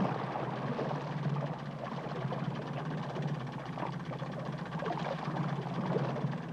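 Small motorboat's engine running steadily: an even low hum.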